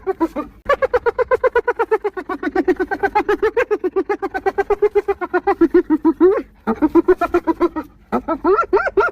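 Spotted hyena giggling: a long run of rapid, pitched pulses, about eight a second, that breaks off about six and a half seconds in and starts again in two shorter runs.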